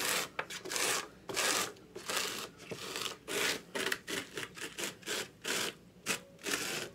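Pieces of paper scraped again and again across a plastic garbage bag, sweeping loose glitter together: a run of short scratchy rubbing strokes, about three a second.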